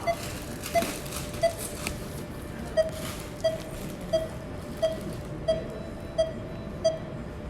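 Patient monitor beeping in time with the pulse: a short mid-pitched beep repeating evenly, about three beeps every two seconds, over steady room noise.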